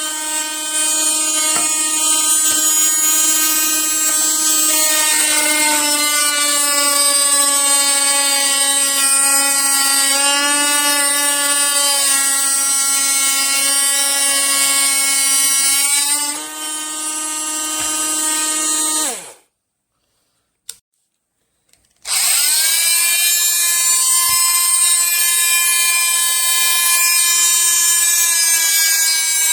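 Cordless oscillating multi-tool running with a steady high whine, its pitch wavering for a moment now and then. About two-thirds of the way through it winds down and stops, with a single click in the quiet. It then starts again with a rising whine and runs on.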